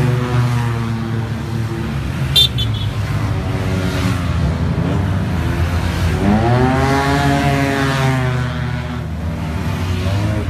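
Yamaha TMAX maxi-scooters with parallel-twin engines riding past one after another, with cars among them. A short horn beep sounds a little over two seconds in. From about six seconds one engine rises in pitch as its rider accelerates by, then falls away.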